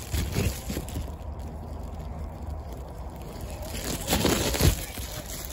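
Plastic packaging around a boxed car amplifier rustling and crinkling as it is handled. There are short bursts just after the start and a louder stretch of crinkling about four seconds in, ending in a thump.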